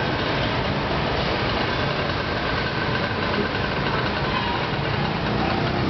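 Steady engine and street-traffic noise, like a vehicle running close by.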